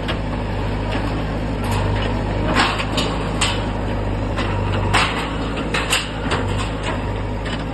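Bulldozer's diesel engine running steadily under irregular sharp knocks and clatters of masonry being broken in a demolition.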